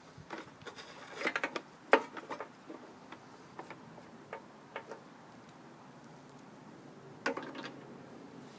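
Scattered metallic clicks and knocks from handling a rusty walk-behind lawn mower, with a quick rattling cluster about a second in, a sharp click just before two seconds and another short rattle near the end. The engine does not start or run.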